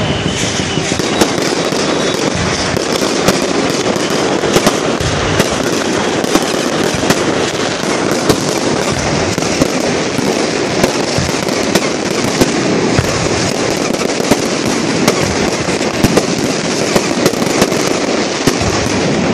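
Fireworks going off: a steady, loud hissing spray studded with many sharp pops and crackles, dying down right at the end.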